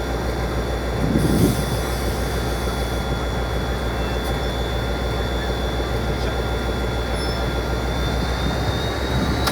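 Class 57 diesel locomotive's EMD two-stroke V12 engine running under load: a steady deep rumble with a thin high turbocharger whistle over it, the whistle creeping up in pitch near the end. A brief louder swell comes about a second in.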